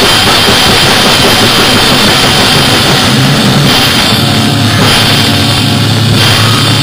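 Live rock band playing loud: electric guitars and a drum kit. Through the second half a low note is held under the playing.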